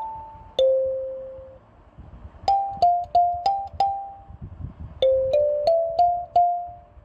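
Background music: a slow melody of single struck, piano-like notes, each ringing and fading. A group of five notes comes about midway, then a short run of notes climbing in pitch near the end.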